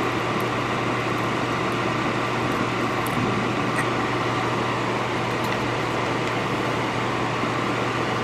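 Steady electric blower fan running, an even rushing noise with a low hum underneath and no change in level.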